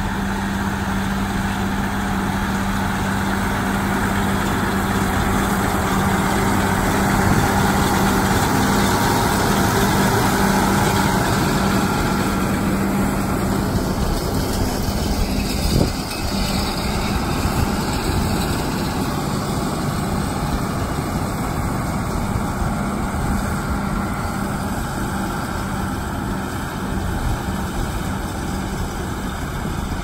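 Allis-Chalmers 7030 diesel tractor running steadily under load, pulling a John Deere 566 round baler that is picking up hay. It comes closest about halfway through, where there is a single short knock, and then draws away, growing slightly fainter.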